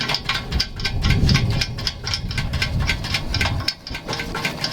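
Hand ratchet wrench clicking rapidly, about six clicks a second, as fasteners on a dually rear wheel are snugged down. A low engine rumble rises underneath in the middle and fades.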